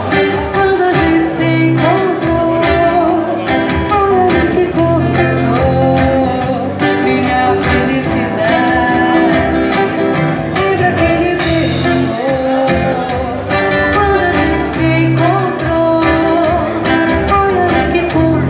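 Live amplified band music: a woman singing a Brazilian pop ballad into a microphone over guitar, with drums and cymbals keeping time.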